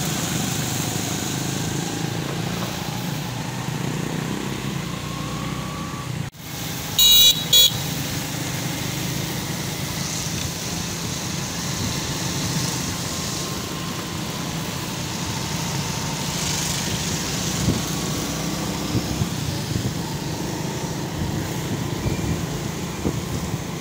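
Steady engine and road noise of a motorbike riding on wet streets. About seven seconds in, a vehicle horn honks twice, briefly and loudly.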